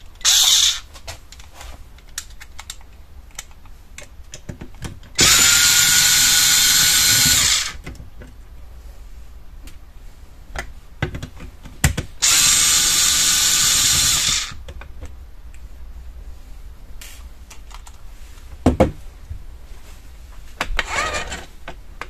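Cordless electric screwdriver running in two bursts of about two and a half seconds each, its pitch rising briefly as each run starts, driving out the screws of a smart door lock's metal casing. Short clicks and knocks of handling come between the runs.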